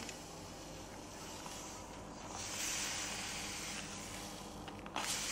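Caster sugar poured from a paper bag into a stainless steel bowl, a soft hiss of grains landing that is strongest from about two to four seconds in. A brief noise near the end.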